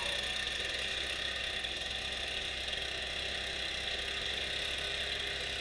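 Backpack leaf blower running steadily, its engine and fan giving an even drone.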